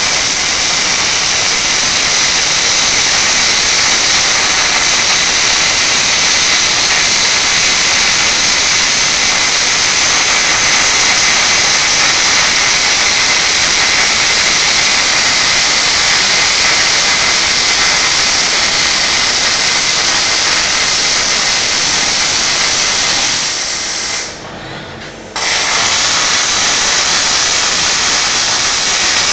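Panasonic robotic arc welder's torch laying a continuous weld along a steel bar, a steady loud crackling hiss of the arc. The arc noise drops away for about a second near the end, then comes back at full strength.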